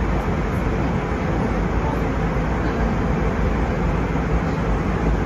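Airbus A320 cabin noise in flight: the steady, even rush of airflow and jet engines heard from a window seat.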